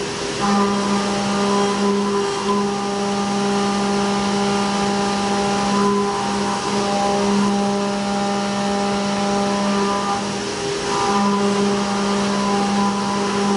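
CNC milling machine's end mill cutting a pocket, a steady pitched hum over a hiss of spraying chips. The hum breaks off briefly every few seconds as the cutter changes direction at the sharp corners of its racetrack toolpath.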